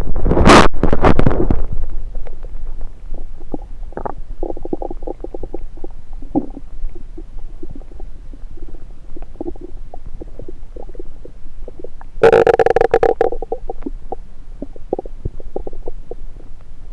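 Stomach gurgling and rumbling picked up through a stethoscope pressed against the belly. A loud burst comes in the first two seconds, then a run of small crackling gurgles, then another loud, drawn-out rumble about twelve seconds in.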